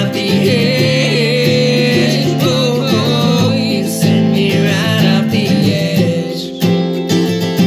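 Folk song played live on an acoustic guitar and a small round-bodied mandolin, with a man and a woman singing together over the strummed chords.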